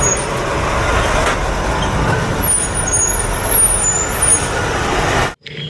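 Sound effect of a heavy truck running, a loud dense engine noise strongest in the low end, cut off suddenly near the end.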